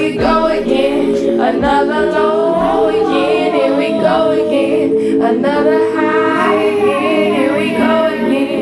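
Live music through a PA: a held, sustained chord with a voice singing a melody over it, without drums.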